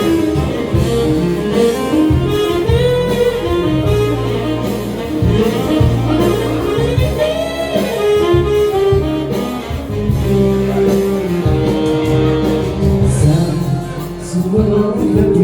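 Live band playing an instrumental break between verses of a Balkan pop song: a gliding melodic lead line over bass and a steady beat.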